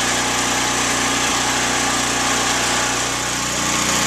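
A small engine running steadily at an even idle, with a constant hum and no change in speed.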